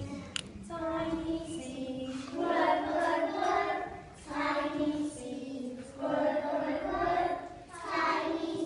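A group of young children singing together, in short phrases with brief breaks between them.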